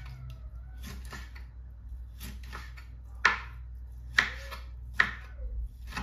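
Knife chopping on a cutting board: about five sharp knocks, unevenly spaced roughly a second apart.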